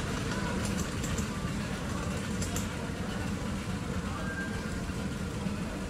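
7¼ inch gauge miniature railway train rumbling along the track as it moves away, the low running noise easing slowly, with a few light clicks about a second in and again halfway through.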